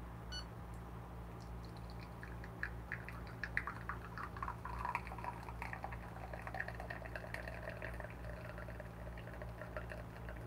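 Espresso streaming and spattering from a Flair 58 manual lever press into a ceramic cup, starting about a second and a half in. The turbo shot is running fast at only about 2 bar of pressure.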